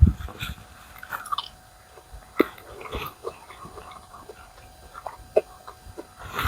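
A person chewing a bite of a seaweed rice roll, with small scattered mouth and eating sounds and a soft thump at the start.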